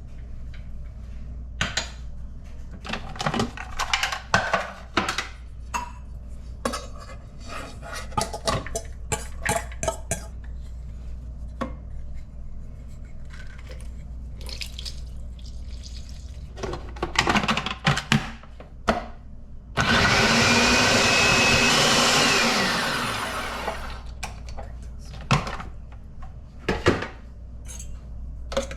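Kitchen blender run for about two seconds, then winding down. Before and after it come scattered knocks and clatters of kitchen work.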